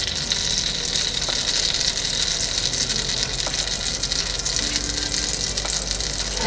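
Pancake batter sizzling in butter in a non-stick pan over low-medium heat: a steady hiss with a few faint ticks.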